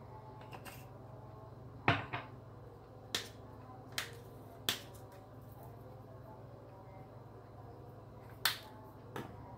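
Seven sharp clicks and taps, spread unevenly, from small spice jars being handled over a glass baking dish: a glass jar of garlic powder tapped and set down, then a jar of dried oregano opened and shaken over the potatoes.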